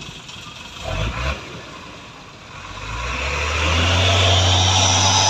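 Mitsubishi Fuso truck's diesel engine revving up and holding high revs with a high whine above it, as the truck strains to pull away on a steep climb. A short low rumble comes about a second in.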